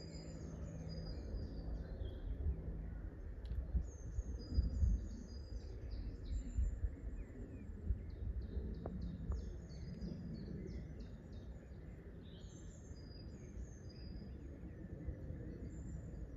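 Woodland songbirds singing, many short high chirps and trills repeated in clusters throughout, over a steady low rumble.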